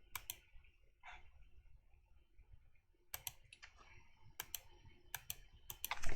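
Computer keyboard keys and mouse buttons clicking: about a dozen short, sharp clicks at irregular intervals, several in quick pairs, as Blender shortcuts and selections are entered.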